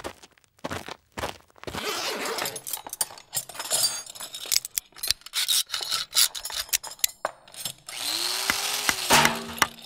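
Metal hand tools scraping, clicking and rattling against a door lock in quick succession, as someone tries to force it open.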